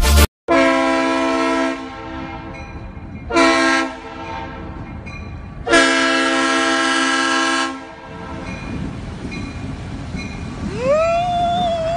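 Diesel freight locomotive's multi-tone air horn sounding for a grade crossing: a long blast, a short one, then another long blast. The low rumble of the oncoming train runs under and after the horn.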